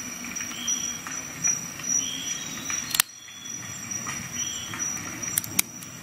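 Leatherman ARC multi-tool handled and worked, its knife blade flicked open and shut: metal clicks and short metallic ringing, a sharp snap about three seconds in and two quick ones near the end.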